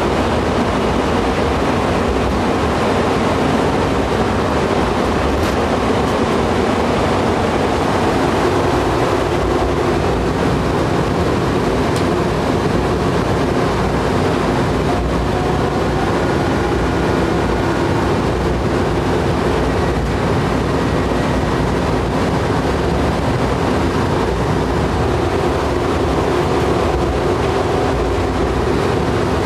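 Steady running noise inside a moving airport rail shuttle car: a constant rumble with a faint hum over it.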